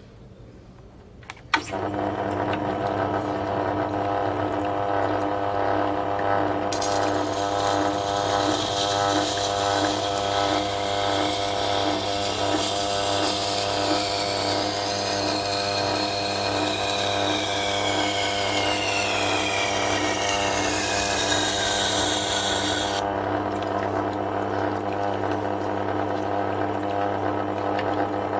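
Tormek T8 wet sharpener starting up about a second and a half in, then running steadily with a low motor hum. From about seven seconds to about twenty-three seconds a knife edge grinds on the SG250 stone, giving a hissing scrape over the hum with a faint whine that slides down in pitch.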